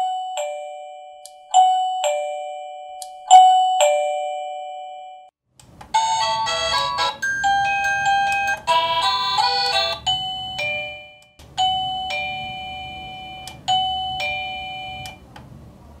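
Wireless plug-in doorbell receiver chiming: three ding-dongs, each louder than the one before as the volume is stepped up. Then, as the ringtones are cycled, it plays a longer multi-note chime melody about six seconds in, followed by another run of two-note chimes.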